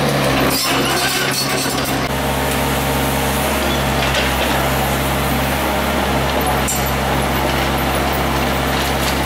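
Mini excavator's diesel engine running steadily under hydraulic load, while its demolition shear crunches and scrapes at reinforced concrete. There are scattered clinks and knocks of concrete and rebar, bunched in the first two seconds and again about two-thirds of the way through.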